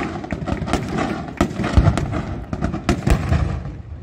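Aerial fireworks display by Pirotecnia del Mediterraneo: a dense run of sharp shell bursts and crackles over a continuous rumble, with two heavier booms about two and three seconds in.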